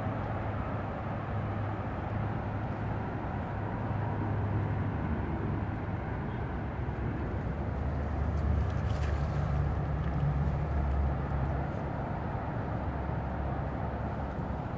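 Steady outdoor background noise: a low rumble with a hiss over it, deepening slightly for a few seconds around the middle.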